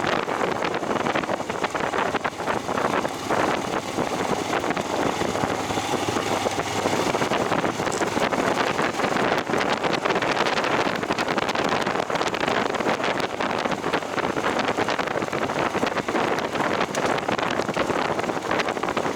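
Wind buffeting the microphone over a steady rumble full of small rattles and crunches, from riding along an unpaved forest road.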